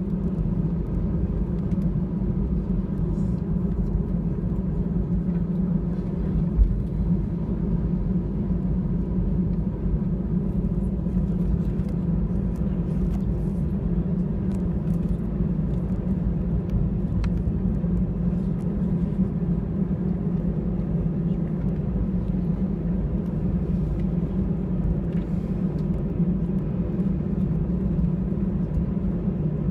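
Airbus A320 cabin noise while taxiing: a steady low rumble from the engines at taxi power, with a faint steady whine above it. A single brief knock about six and a half seconds in.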